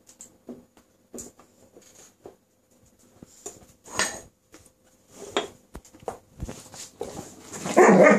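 A corgi puppy and a Vizsla playing on a dog bed: scattered short scuffles and taps. Near the end comes a longer, louder burst as the two dogs tussle.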